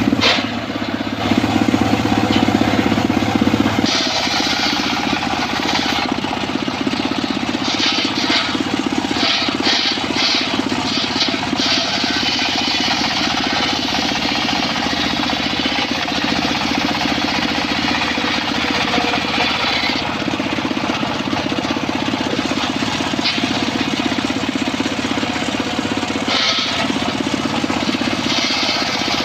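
Circular saw running steadily, its blade cutting into wood in long stretches that add a loud high hiss over the drone of the drive, easing back between cuts.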